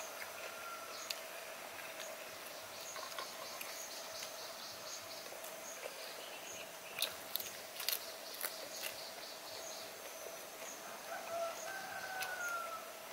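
Countryside ambience: a faint steady hum, a high chirp repeating at an even pace, and a bird calling near the end, with a few sharp clicks of eating in the middle.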